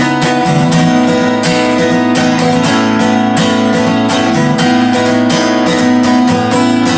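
Bentivolio 1501 all-solid acoustic guitar, Indian rosewood back and sides, playing chords with steady, even strokes.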